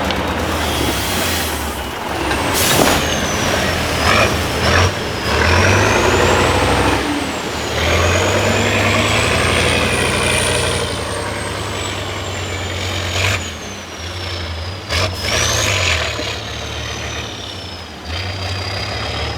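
A Tatra 6x6 off-road truck's diesel engine working hard over rough terrain, its note swelling and easing as the revs change. A high whine rises and falls with it, and there are a few sharp bursts of hiss or knocks.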